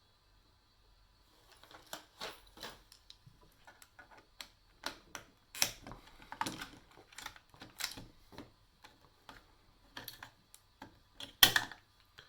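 Irregular clicks and knocks of a hard plastic audio-guide handset being handled and worked at to get its back cover off, with one sharp loud snap near the end.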